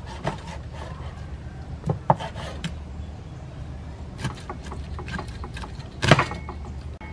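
Kitchen knife chopping a large fish into steaks on a wooden chopping board: a few irregular knocks of the blade through flesh and bone onto the wood, the loudest about six seconds in.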